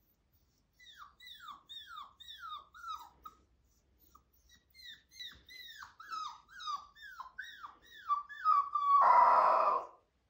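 A five-week-old husky puppy trying to howl: a run of short, high cries, each falling in pitch, about three a second, then a short pause and a second run. Near the end comes a louder, harsher sound about a second long.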